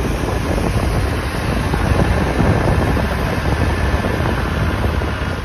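A large six-wheeled expedition truck driving past on sand, its engine and tyres running under heavy wind noise buffeting the microphone.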